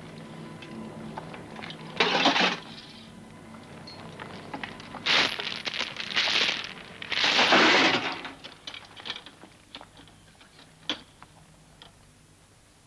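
Clinking and clattering with a scatter of sharp clicks and four louder rushing crashes, a little over two seconds in, around five and six seconds, and the longest and loudest about seven to eight seconds in; the sound then thins out to faint clicks.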